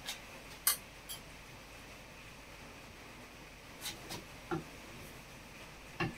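Scattered light clicks and knocks of metal on metal, the sharpest a little under a second in, as the sump cover of a Briggs & Stratton Vanguard V-twin is lowered and pressed by hand onto the crankcase.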